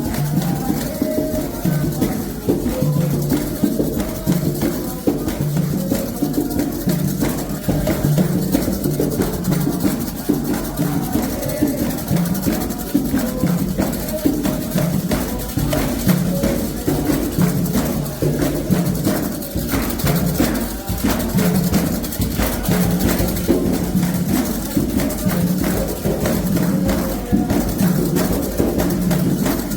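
Candomblé ritual music: a dense, steady percussion rhythm of atabaque hand drums and struck small percussion, with voices chanting a song over it.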